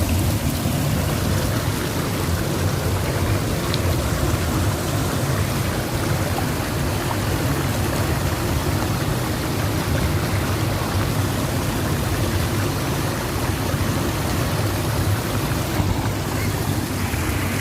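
Waterfall and river water rushing over rocks, a steady, unbroken roar with a deep rumble.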